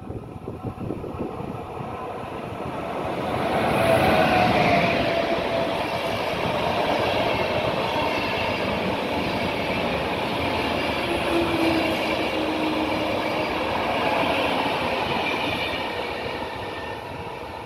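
PKP Intercity passenger train of locomotive-hauled coaches passing along the platform, wheels running on the rails. The sound builds to its loudest about four seconds in, holds as a steady rumble while the coaches go by, and eases off near the end as the train moves away.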